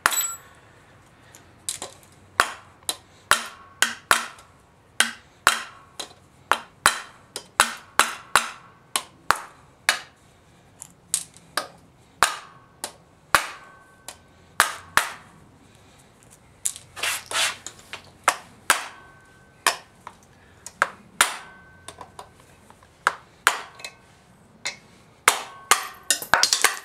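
Repeated hammer blows on a valve keeper removal tool seated on the valve spring retainers of a 1989 Honda Civic cylinder head, knocking the valve keepers loose so the springs can come off. The strikes come in uneven runs of about two a second with short pauses, and some ring briefly like metal.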